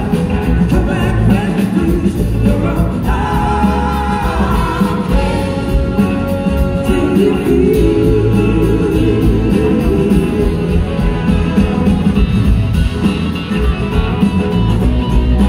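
Live blues-rock band playing with a woman singing lead, over two drum kits, electric guitar and a horn section, heard from the audience.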